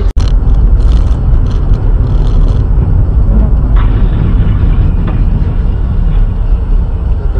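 Loud, steady low rumble of a moving car's road and engine noise, cutting out for a split second just after the start.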